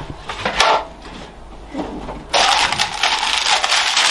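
Baking parchment rustling and crinkling as a sheet is handled and spread out. A few light clicks come about half a second in, then steady, dense crinkling starts a little after two seconds in.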